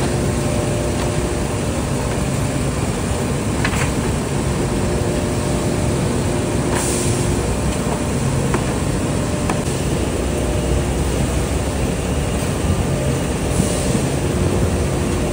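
Bakery pan conveyor and production-line machinery running: a steady industrial din with a low hum, broken by a few brief clanks and short hissing bursts.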